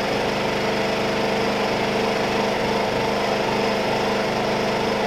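WEN 56203i 2000-watt inverter generator, its Zongshen 148F single-cylinder engine running steadily in eco mode with no load: a quite quiet, even hum heard from about 15 to 20 feet away.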